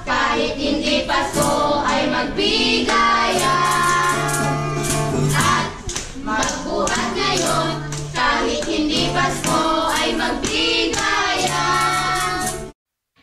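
A children's group singing a Christmas carol together to acoustic guitar strumming. The sound cuts off suddenly near the end.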